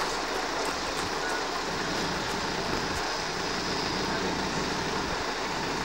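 Truck-mounted mobile crane's diesel engine running steadily while it holds a helicopter fuselage on its hook.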